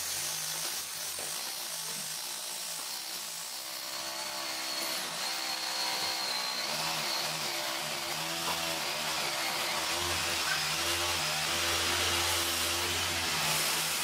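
Corded electric drill boring into a ceramic wall tile, its motor running steadily under load with the bit grinding through the tile.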